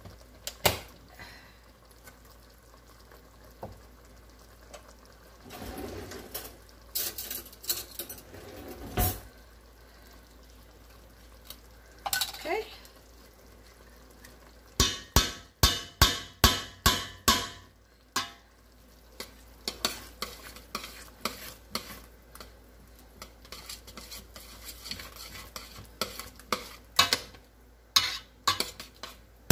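Metal utensils clinking and scraping: tomato paste is scraped and tapped off a metal measuring spoon into a stainless steel pot, with a quick run of sharp taps about halfway through. Then a spoon stirs a thick stew, clinking lightly against the pot's sides.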